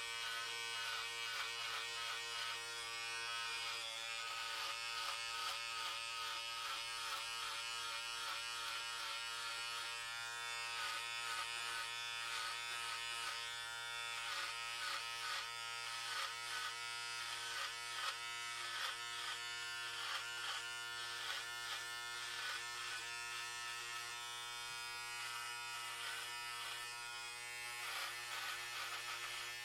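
Electric hair clippers running with a steady buzz, the pitch holding constant, with a faint fluttering texture that comes and goes as the blades work.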